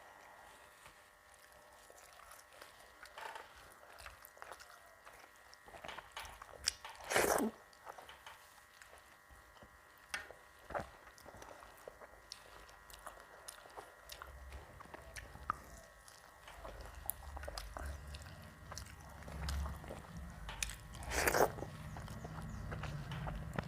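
Close-up mouth sounds of a person eating: quiet chewing and biting with scattered small crunches, and two louder crunches, one about seven seconds in and one near the end. A low rumble joins from about halfway.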